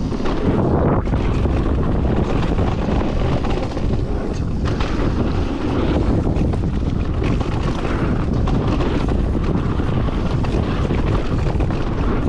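Wind buffeting the microphone over the rumble and clatter of a mountain bike descending a rough trail, with many small knocks from the wheels and frame over roots and stones.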